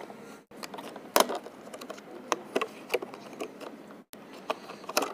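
Hands handling packaging: a clear plastic insert crinkling and clicking and a small cardboard box being opened, a run of irregular sharp snaps and ticks, the loudest a little over a second in.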